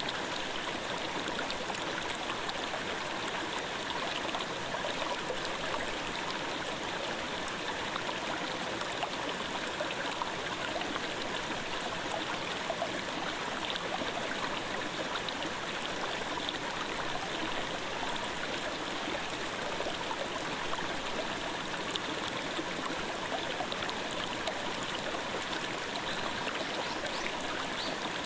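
Clear mountain stream babbling over rocks, a steady, even rush of flowing water.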